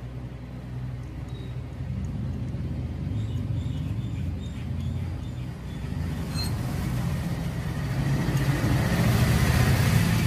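Low, steady rumble of road traffic, growing louder over the last few seconds as a vehicle passes close by.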